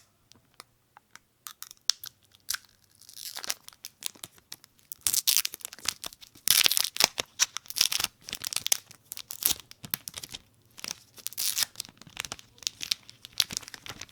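Protective plastic wrap being peeled off a new smartphone: sharp crackling and tearing in bursts, a few scattered clicks at first, then louder and denser from about five seconds in.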